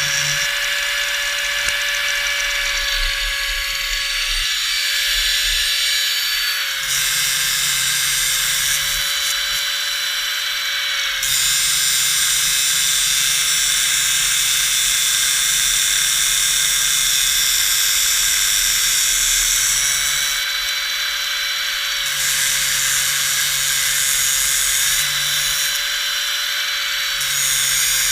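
Electric angle grinder running continuously with a steady whine over a harsh hiss; its pitch sags slightly a few times, as when the disc is pressed into the steel.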